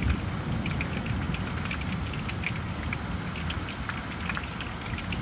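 Heavy rain falling steadily, with many separate drops tapping close by and a low rumble underneath.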